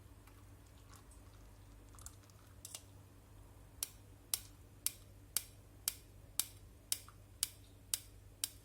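A run of about ten sharp, evenly spaced taps, about two a second, starting about four seconds in, with a few fainter ticks before them and a steady low hum underneath.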